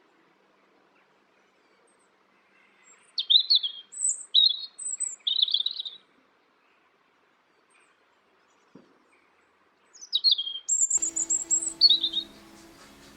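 A songbird chirping in short, high, sharp phrases, in two bouts a few seconds apart. Soft music comes in near the end.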